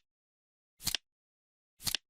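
Countdown timer's ticking sound, one short click each second, twice here, each tick a quick double click with silence between.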